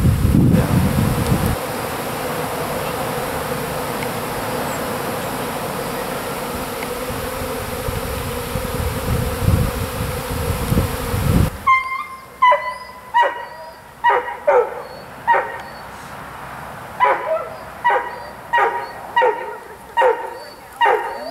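Honeybee swarm buzzing as a steady hum. About halfway through the hum cuts off abruptly and a dog barks over and over, in short runs of quick barks.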